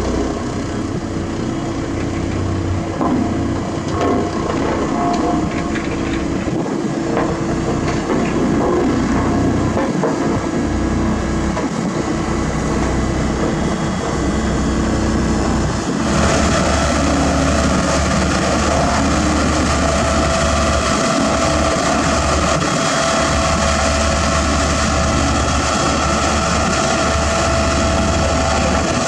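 HAMM 311D single-drum soil compactor's diesel engine running steadily. About halfway through the engine note changes and a steady whine comes in over a deeper hum.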